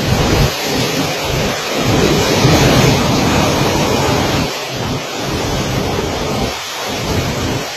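Typhoon wind and heavy rain, with gusts buffeting the microphone in rumbling surges.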